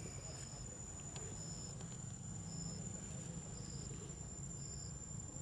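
Insects singing: a steady high-pitched drone with a short chirp repeating about once a second, over a low steady rumble.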